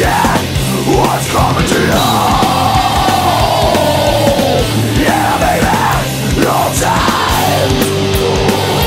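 Background music: a heavy rock song with a sung vocal line over a steady drum beat, the voice holding one long note about two seconds in.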